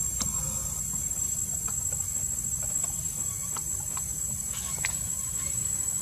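Steady high-pitched insect drone over a low steady rumble, with a few faint scattered clicks.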